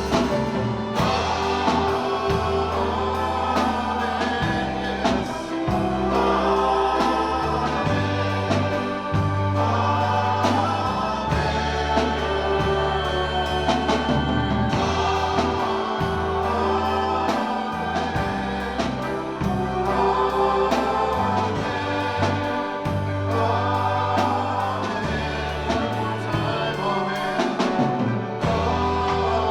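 Congregational worship song: voices singing a gospel-style melody over a band with bass, sustained chords and a steady beat.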